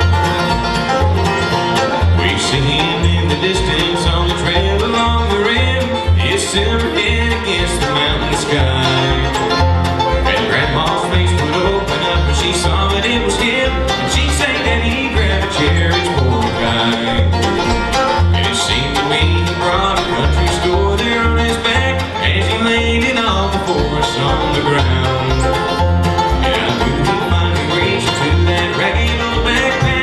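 Bluegrass band playing live: banjo, acoustic guitar, mandolin and upright bass, the bass plucking a steady beat under the picked strings.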